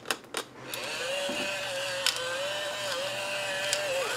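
Electric salt and pepper grinder whirring steadily as it grinds seasoning, after a few sharp clicks at the start.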